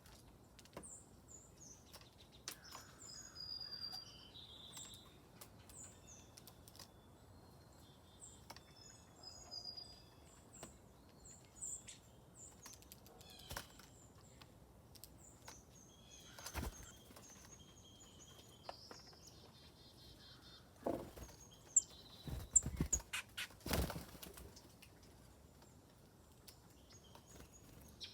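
Small songbirds chirping, with many short high calls throughout. A group of louder wing flaps and knocks comes about three-quarters of the way through, and there is a single earlier knock.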